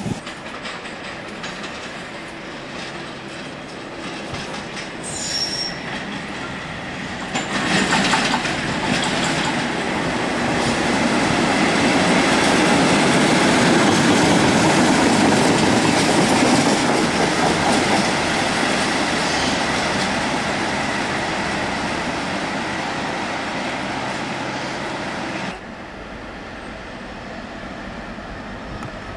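Trains passing through a station: coaches rolling past, then an English Electric-engined Class 37 diesel locomotive passing close with its engine running, loudest about halfway through. Near the end the sound drops suddenly to a quieter Class 56 diesel locomotive drawing a freight train towards the camera.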